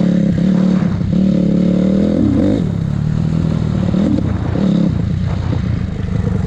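2006 Honda CRF250R's single-cylinder four-stroke engine running under way on a ride. The engine note holds steady, then shifts and resettles twice, around two and four seconds in.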